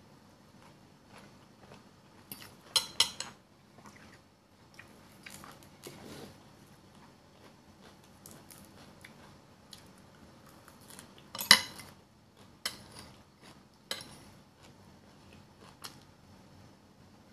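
Fork and spoon clinking and scraping against a bowl of noodle salad: a few sharp clicks, a quick cluster about three seconds in and the loudest one about eleven and a half seconds in, with quiet chewing between.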